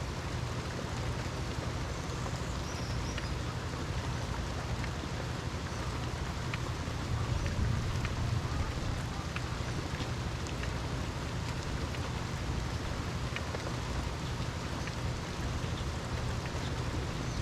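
Steady rain falling, with scattered faint drop ticks over a continuous low rumble.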